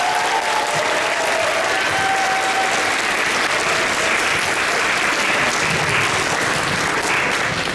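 Audience applauding steadily, dense clapping with a few voices calling out over it in the first few seconds. The applause tails off at the very end.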